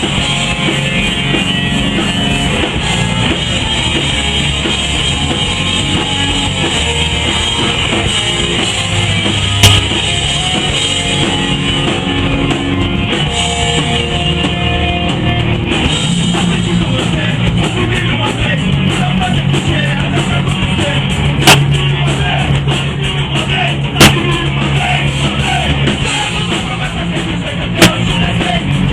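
A rock band playing live, with drum kit and electric guitar driving a steady, loud song. A few short sharp pops cut through it, about a third of the way in and three more times in the second half.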